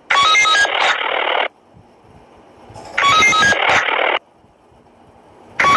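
Police walkie-talkie ring sound effect from a prank phone app: a quick run of short beeps followed by a burst of radio static. It repeats about every three seconds, with a third round starting near the end.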